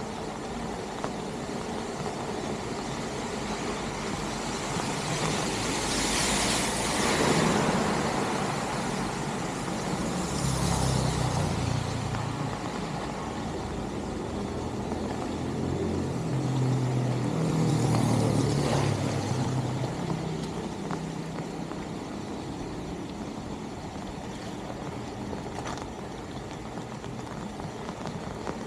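Vehicles passing one after another on a flooded road, their tyres hissing through the water, three times, over a steady wash of rain and running water.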